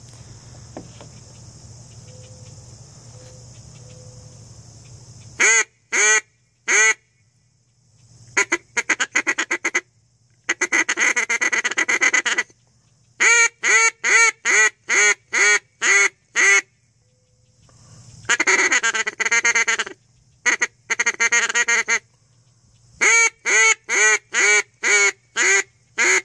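Bees O'Brien Duck Smoker double-reed duck call blown in quacking sequences from about five seconds in: short groups, strings of about eight evenly spaced quacks, and faster, denser runs of notes between them. Before the calling starts, crickets chirp steadily.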